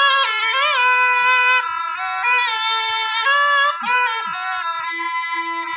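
Rajasthani folk music: a high, bending melodic line over a steady drone.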